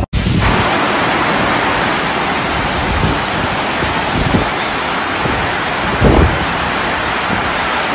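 Heavy hail and rain pouring down in a steady, dense hiss during a hailstorm. Strong wind gusts buffet the microphone, loudest about six seconds in.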